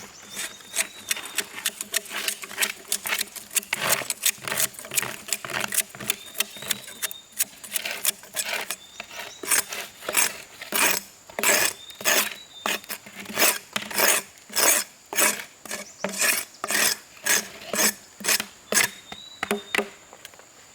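Repeated strokes of a hand tool rasping on wood, about two a second, growing louder about nine seconds in.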